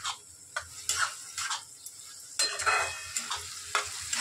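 Steel spatula stirring and scraping chopped onions around a coated kadhai in a string of short, irregular strokes, over a light sizzle of the onions frying in butter and oil.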